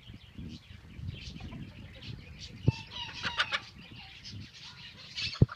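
Young chickens clucking, with a short, harsh call from a young rooster about three seconds in. Two sharp low thumps, the louder one near the end.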